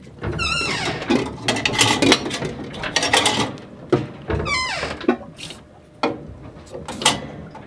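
Metal squeaking from the galley stove as the boat rolls, the kind of pivot squeak cured with WD-40: two squeals that fall in pitch, about half a second in and again about four and a half seconds in, with clicks and knocks between.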